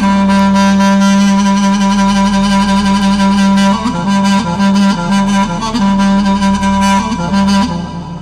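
Background music led by a reedy wind instrument, holding one long low note for about four seconds and then playing shorter notes that slide between pitches, over a steady low drone.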